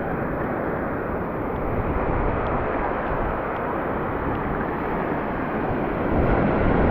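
Steady rushing of heavy storm surf and wind, growing louder near the end as a wave washes in.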